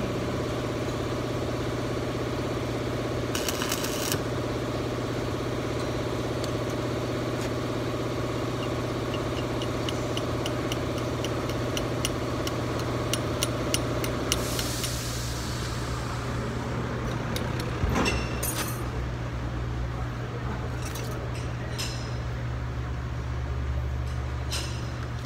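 Steady machine hum from equipment running in the garage, whose higher tones drop away about two-thirds of the way through. Over it come scattered metal clicks and clinks from a drive axle being handled, with a short run of even ticks just before the hum changes.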